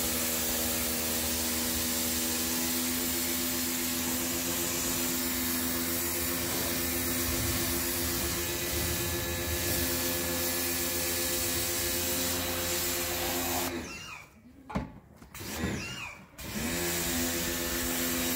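Pressure washer running, its motor and pump giving a steady hum over the hiss of the spray. About 14 seconds in, it stops twice in quick succession for about a second each, then starts running again.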